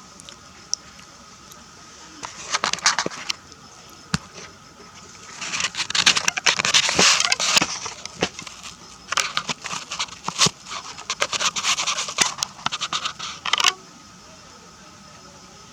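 Crackling, scraping rustles in three bursts, the last two several seconds long, with a few single clicks between.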